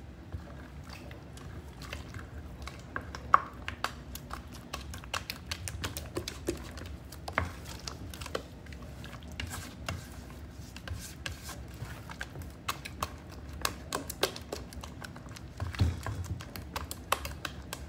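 Wooden spoon beating thick cake batter in a glass bowl: a steady run of irregular clicks and taps as the spoon strikes and scrapes the glass, with one sharper knock about three seconds in.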